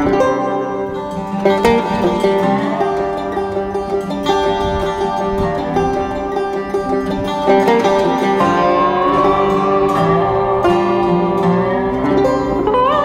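Background music led by plucked strings, guitar-like, with a steady flow of notes.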